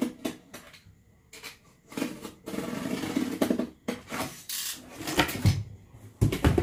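Corrugated cardboard box being worked by hand: irregular scraping and rubbing as its flaps are folded, with a couple of dull thumps near the end as the box is lifted and turned.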